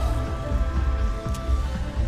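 Background music with sustained notes over a steady, pulsing bass beat.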